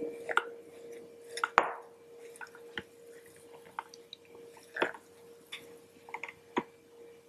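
A spoon scooping and scraping thick cocoa-hazelnut butter inside a plastic Blendtec Twister blender jar, with soft wet squishes. About five sharp clicks and knocks come at irregular moments as the utensil and the twist lid strike the jar. A faint steady hum runs underneath.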